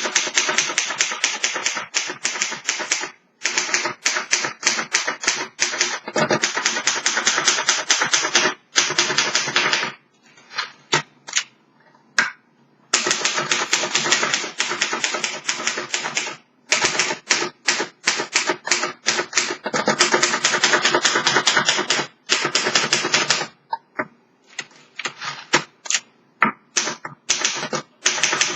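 Fast typing on a 1954 Underwood Leader manual typewriter: rapid runs of sharp key and typebar strikes. There are two short pauses with only a few scattered strokes, about ten seconds in and again past twenty seconds.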